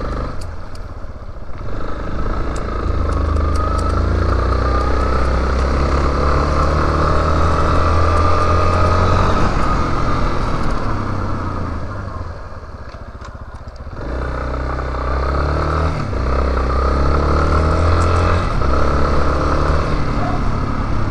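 Yamaha Lander 250 single-cylinder four-stroke motorcycle engine running under way, revving up and down through the gears. It drops back to a quieter low-rev run about twelve seconds in, then pulls away again about two seconds later, heard from a helmet-mounted camera.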